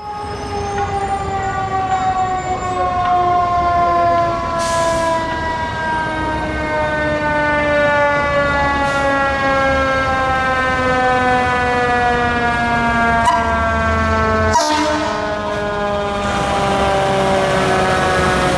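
Fire engine's mechanical siren winding down: one long wail falling slowly and steadily in pitch, over the rumble of the truck's engine, with a few short hisses.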